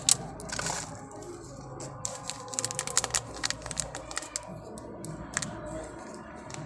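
Thin disposable plastic cups clicking and crinkling as they are pulled apart and handled while being filled by hand with potting mix: a run of short, sharp clicks, with a brief rustle under a second in.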